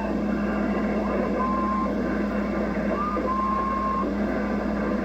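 CB radio receiver putting out steady hissing static with a low hum, over which whistling tones come and go: a short held whistle about a second and a half in, then another about three seconds in that rises briefly and holds for about a second.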